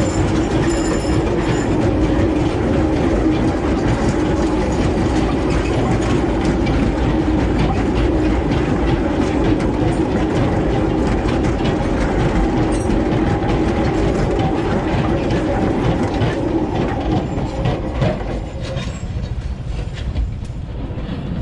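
Loaded sugar cane wagons of a 762 mm narrow-gauge sugar railway rolling past close by, a steady rumble with the rattle and clatter of steel wheels on the track. The sound falls away about three-quarters of the way through, as the last wagon passes and moves off.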